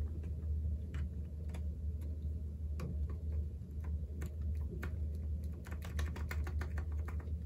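Keys of a NuPhy Air75 V2 low-profile mechanical keyboard clicking as they are pressed: scattered single clicks, then a quick run of about a dozen clicks near the end, over a steady low hum.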